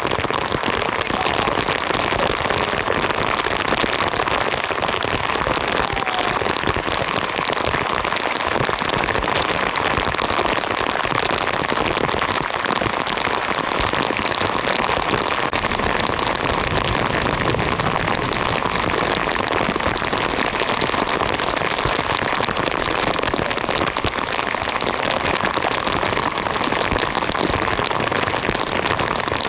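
Heavy rain falling steadily, a dense even patter of drops striking surfaces.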